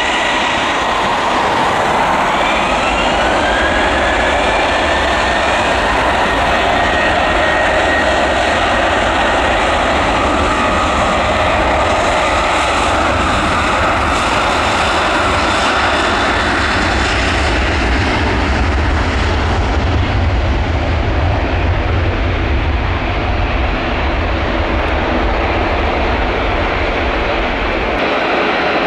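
Boeing 737 jet engines spooling up to takeoff power, with a rising whine over the first few seconds. Then comes a loud, steady roar with a deep rumble as the airliner accelerates down the runway. The higher tones fade in the last third as it moves away.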